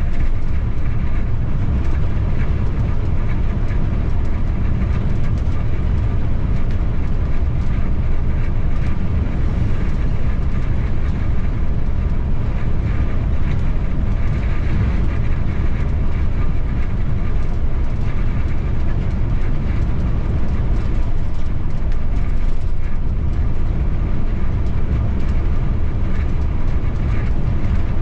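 Bus driving along, heard from the driver's cabin: a steady low rumble of engine and road noise.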